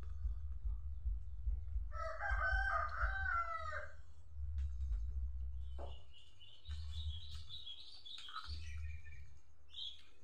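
A rooster crowing once, about two seconds in, the crow lasting close to two seconds. A few seconds later comes high-pitched bird chirping, over a steady low rumble.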